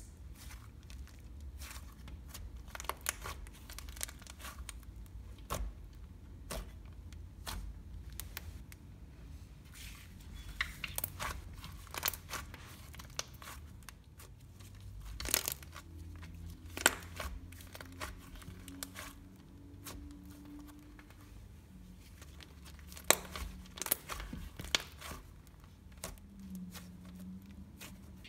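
Slime being squished, poked and stretched by hand, making irregular sticky clicks and small pops.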